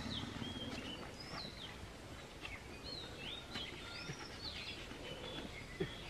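Birds chirping: a run of short whistled notes that swoop up and down, over a faint steady background noise, with a brief knock near the end.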